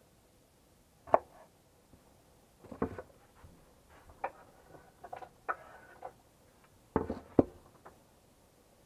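Scattered taps and knocks of kitchen work: a knife on a wooden cutting board while potatoes are cut, and a plate being handled. There is a sharp knock about a second in, and the two loudest knocks come close together near the end.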